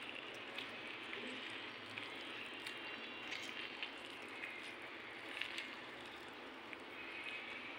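Quiet steady hiss with a few faint soft ticks and wet squelches as half a lemon is squeezed by hand and its juice drips into a bowl of chopped vegetables and chickpeas.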